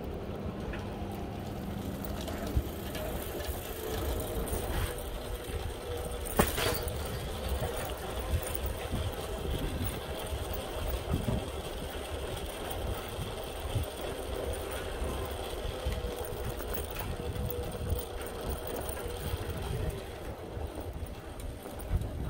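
Steady low rumble from riding a bicycle through city streets, with faint steady whining tones over it and a sharp click about six and a half seconds in.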